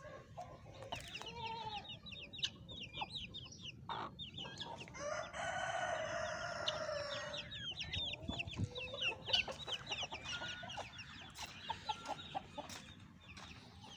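Aseel rooster crowing once, a long call of about two seconds near the middle, among clucking fowl and many quick, high chirps.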